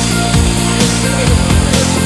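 Loud background music with a heavy, driving beat and electric rock or electronic instrumentation.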